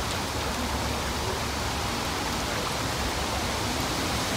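Steady rushing wind noise buffeting the microphone, with no distinct events.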